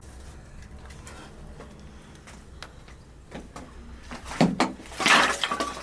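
Cooking gear being handled: scattered light knocks, then louder clatter and scraping from about four to five and a half seconds in.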